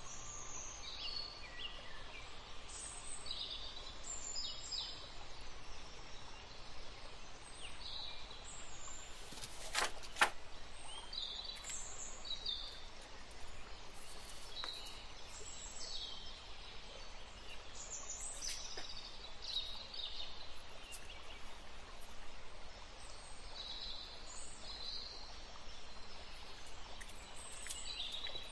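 Small birds chirping on and off in the background over a faint steady hiss, with one sharp tap about ten seconds in.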